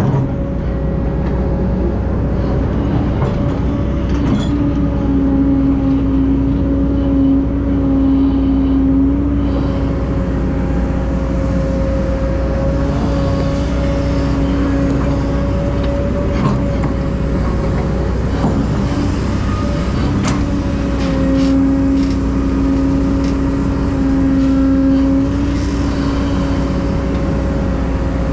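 Heavy diesel earthmoving machinery, such as an excavator working beside dump trucks, running steadily with a deep rumble and a steady hum. The hum swells twice for several seconds, and a few faint knocks are heard.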